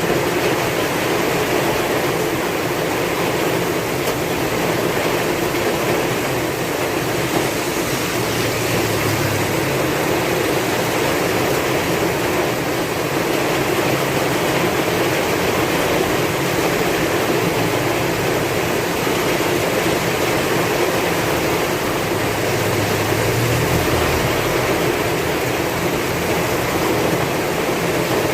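Heavy rain falling in strong wind: a steady, even rush with a low rumble that swells a little twice.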